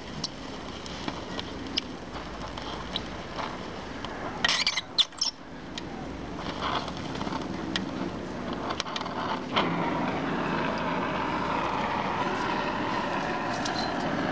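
Oxyacetylene welding torch flame hissing steadily as it welds the car's steel sill (running board), with scattered crackles and pops from the molten weld. A burst of louder pops comes about four and a half seconds in.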